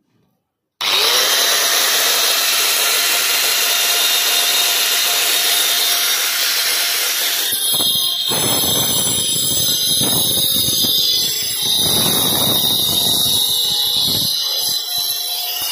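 Handheld angle grinder with a diamond cutting disc switched on about a second in, spinning up to a steady high whine. About halfway through the disc bites into brick and mortar and the sound turns rough and uneven as it cuts.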